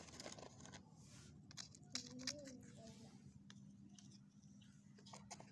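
Quiet handling of corrugated cardboard: faint taps and rustles, with a few sharper clicks about two seconds in as a small cardboard piece is moved and set down. A brief faint wavering tone sounds at the same moment.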